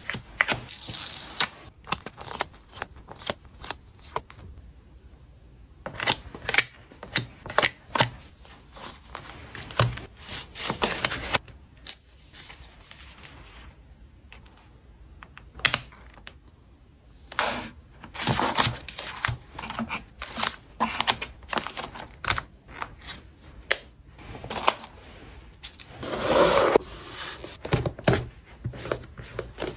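Photocard packing at a desk: many quick clicks and taps of plastic sleeves, cards and small items being handled and set down, with short stretches of plastic rustling.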